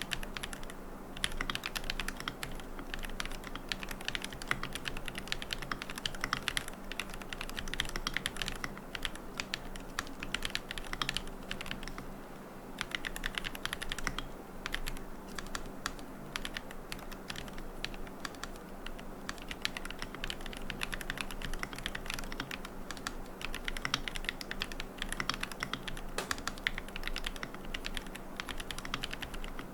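Typing on a QK75N mechanical keyboard with Gateron Moon Landing switches, a carbon plate, no foam and MilkyWay Poker keycaps: a rapid, continuous run of key clacks with a brief pause about twelve seconds in.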